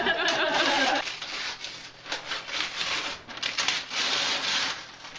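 Wrapping paper being torn from a large gift box by hand: a run of uneven rips and crackling rustles.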